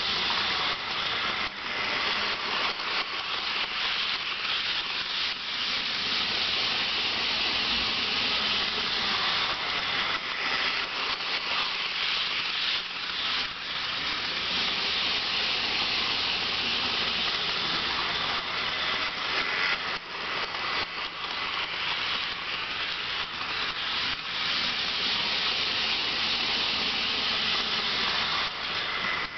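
HO-scale model train running on its track: a steady high hiss of wheels rolling on the rails, with a faint steady low hum underneath.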